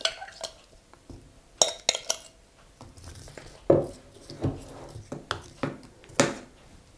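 A metal spoon clinking and scraping against a glass mixing bowl and a springform pan while diced apples are scooped out and tipped into the pastry case: a scattered run of short clinks and knocks.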